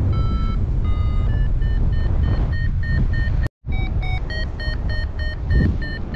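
Paragliding variometer beeping in short, quick regular pulses, about five a second, the sign of the glider climbing, over steady wind rush on the microphone. All sound drops out for a split second about halfway through.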